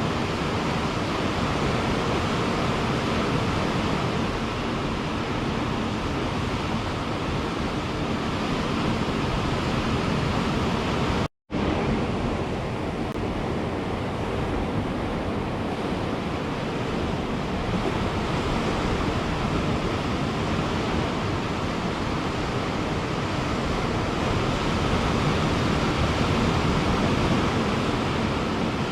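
Ocean surf washing onto a beach, a steady rushing wash of waves that swells and eases slightly. The sound drops out completely for a split second about eleven seconds in.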